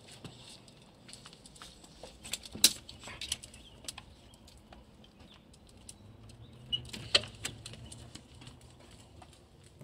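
Light, irregular clicks and taps of two dogs' claws on a concrete porch and doormats as the dogs shuffle about, with a few sharper clicks, the loudest about two and a half seconds in and about seven seconds in.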